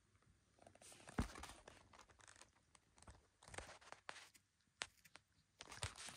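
Quiet room tone with faint, scattered rustles and small clicks, one sharper tap about a second in.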